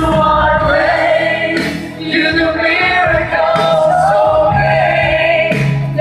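A group of voices singing a praise and worship song together, the melody wavering over steady musical backing.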